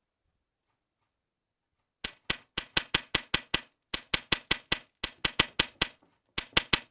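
Airsoft gun firing rapid single shots, about five or six a second, in three strings with short pauses between them, starting about two seconds in.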